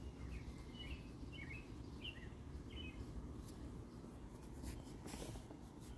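A small bird chirping four short notes over a steady low outdoor rumble, followed by brief scratchy rustles in the second half.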